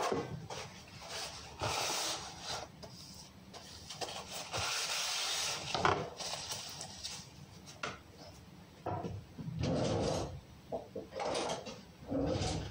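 Kitchen handling sounds: wooden cabinet doors and drawers being opened and shut, with scattered knocks and rustling.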